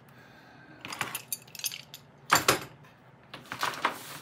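Metal tools and parts clinking and clattering as they are handled on a workbench, in several short bursts, the loudest about two and a half seconds in.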